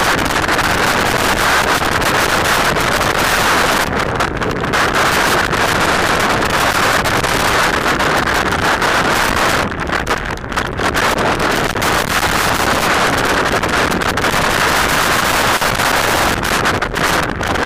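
Strong, gusting storm wind blasting the action camera's microphone, with driving rain, as one loud continuous rush. There are brief lulls about four and ten seconds in.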